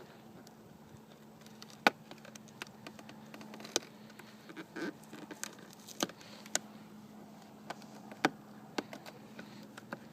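Fingers pressing and smoothing a sticky adhesive repair patch onto a plastic vehicle light lens: scattered sharp clicks and small crackles, the sharpest about two, four, six and eight seconds in, over a faint steady hum.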